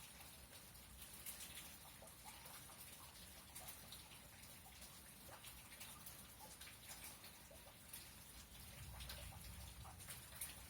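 Faint rain during a thunderstorm: scattered drips and light ticks of raindrops, with a faint low rumble about nine seconds in.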